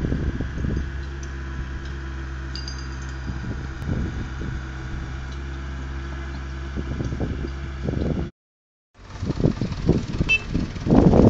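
An engine running at a steady, even hum. After a brief break, irregular gusts of wind buffet the microphone.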